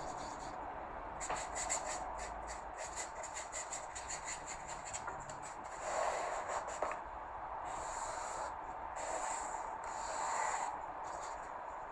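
Paintbrush bristles scrubbing wet acrylic paint across paper in quick short strokes: a soft, continuous rubbing and scratching, with a few louder scrubs about halfway through and near the end.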